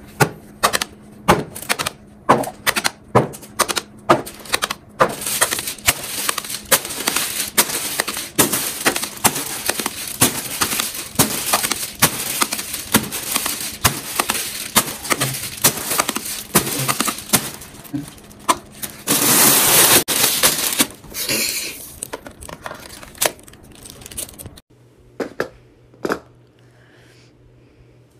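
Fidget toys being clicked and tapped by hand: a quick run of sharp clicks, several a second, with a denser crackling stretch about two-thirds of the way through and a few sparser clicks near the end.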